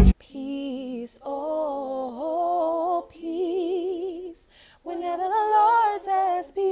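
A woman singing a cappella, without accompaniment: held notes with a wide vibrato in several short phrases with brief breaths between them.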